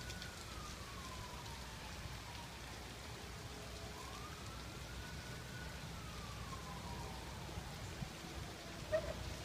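Distant emergency-vehicle siren wailing faintly, its pitch sliding slowly down, rising again about four seconds in, then falling, over the steady hiss of heavy rain.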